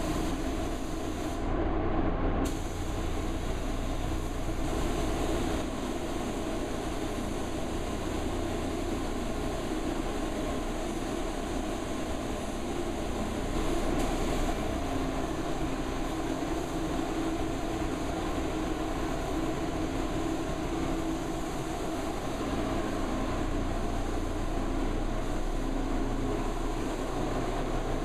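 Steady air noise of a paint spray booth's ventilation running, with the hiss of a compressed-air spray gun spraying paint. The high hiss drops out briefly about two seconds in.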